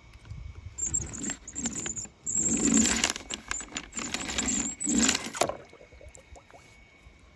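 Die-cast Jackson Storm toy car pushed back and forth across paper on a table, its small wheels rattling and scraping in several strokes over a few seconds.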